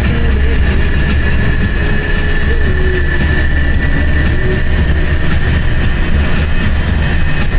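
A moving bus's engine and road noise heard from inside the driver's cabin: a steady, loud low rumble with a thin high whine held over it.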